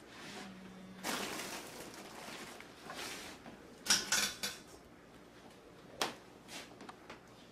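Handling noises: rustling, then a quick cluster of sharp clicks and knocks about four seconds in and another single click a couple of seconds later.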